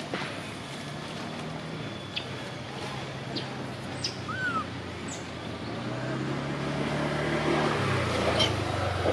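A motor vehicle's engine hum that grows louder and drops in pitch about eight seconds in as it passes, over outdoor background noise. A short high squeak comes about four seconds in.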